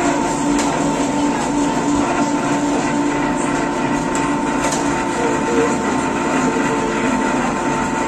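Electric meat grinder motor running steadily with a constant hum.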